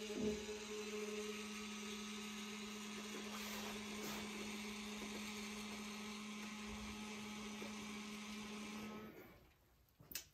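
Steady electronic buzz from a Snap-on digital torque-angle wrench while a connecting-rod cap bolt is turned through its 90-degree angle step. The buzz cuts off about nine seconds in, and a single faint click follows.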